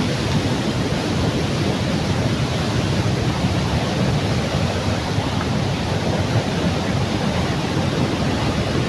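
Waterfall rushing steadily, a constant roar of falling water with no breaks, some wind buffeting on the microphone mixed in.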